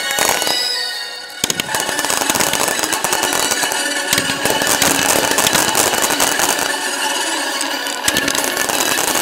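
Fireworks in a dense, rapid crackle of reports that starts abruptly about a second and a half in after a brief lull, with the display's accompanying music faintly underneath.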